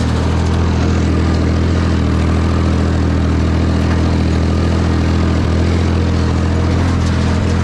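Ford 4000 tractor engine running at a steady speed.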